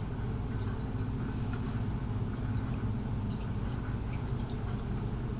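Aquarium filter running: a steady low hum with a faint trickle and drip of water.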